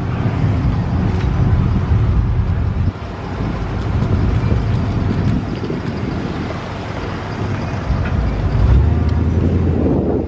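Pickup trucks rolling in a group, their engines and exhausts running loud and low over road and wind noise, with a brief dip about three seconds in.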